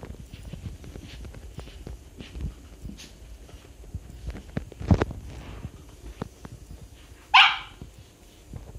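A small dog barks once, sharply, near the end, after a few seconds of knocks and a thump about halfway through.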